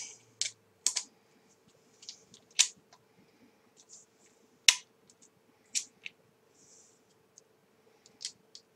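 Irregular light clicks and clacks of small steel screwdriver bits being handled and pushed into the 6.35 mm hex chuck of a Ryobi 4V cordless screwdriver, over a faint steady hum.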